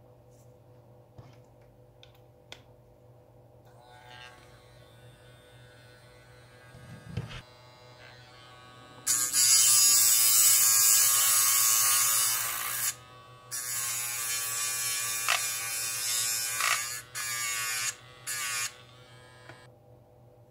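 Small DC motor of a homemade mini hand grinder spinning a cutting disc, run in four bursts starting about nine seconds in, with a steady whine. In the first and loudest burst there is a harsh hiss as the disc is held against the steel tip of needle-nose pliers. Before the motor starts there are only faint handling clicks.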